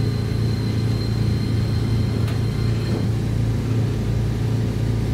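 Chikuho Electric Railway tram heard from inside the car as it pulls away: a steady low hum and rumble from the motors and wheels on the rail, with a faint high whine that fades out about halfway through and a single click a little after two seconds in.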